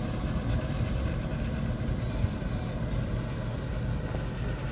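Engine of a small motor launch running steadily as the boat pulls away, a steady low rumble.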